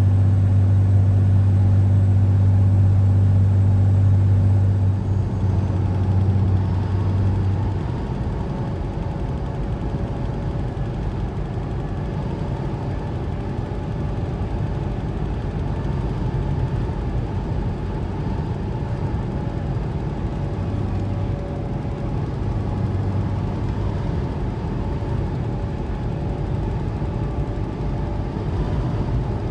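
Highway cruising noise heard from inside the cab of a Ram 5500 diesel truck: a steady rumble of engine and tyres. A loud low drone sits over it for the first few seconds and drops away between about five and eight seconds in.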